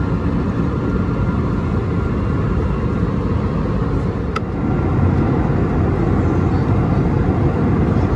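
Steady cabin noise of an Airbus A320neo in flight: a low rumble of engine and airflow, with a faint steady tone riding on it. There is one brief click about four seconds in.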